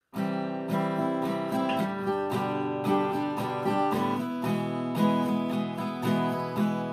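Acoustic guitar strummed in a steady rhythm, starting suddenly out of silence: the instrumental opening of a song.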